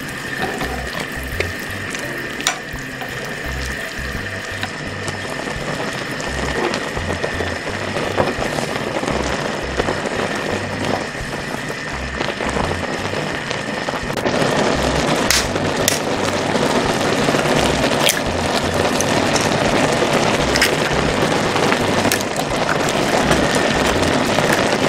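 Broth boiling hard in a wide pan, a steady bubbling with small clicks of chopsticks and noodles being stirred in; the boil grows louder about halfway through.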